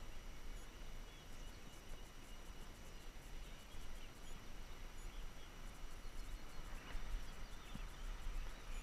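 Steady outdoor background beside a flowing stream: an even wash of running water with a low rumble under it, and a few faint bird chirps.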